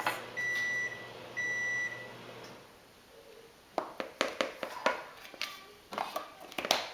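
Microwave oven beeping at the end of its cycle: two half-second beeps about a second apart, the last of a run, signalling that the butter has finished heating. Then, from about four seconds in, a run of sharp clinks and knocks of spoons and dishes.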